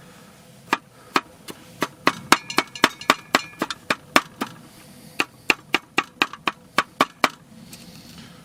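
Kitchen knife chopping on a small cutting board in quick, even strokes, about four a second, with a short break midway.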